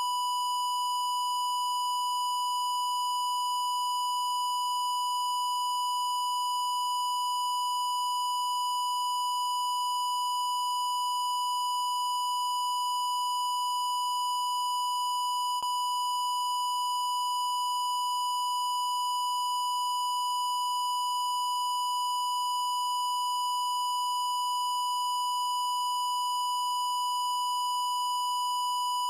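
Steady 1 kHz reference test tone of the kind broadcast with television colour bars, one unbroken pitch at a constant level. A faint click about halfway through.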